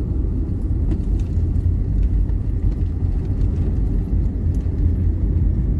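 Road vehicle driving along, heard from inside the cabin: a steady low rumble of engine and road noise, with a few faint ticks.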